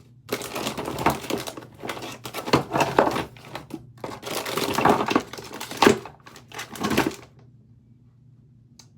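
Packaging crinkling and rustling as it is handled, in a run of irregular bursts that stops a little after seven seconds in.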